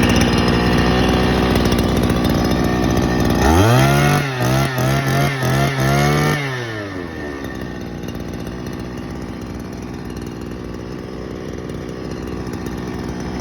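Small petrol brush cutter engine running, then revved hard about 3.5 seconds in with several quick throttle blips, and dropping back to a low idle about 6.5 seconds in.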